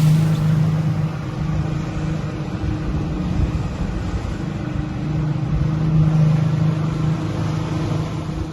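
Boat engine running steadily while trolling, with wind and water rushing past the hull. The low engine tone swells and eases a little, and the sound drops away abruptly at the very end.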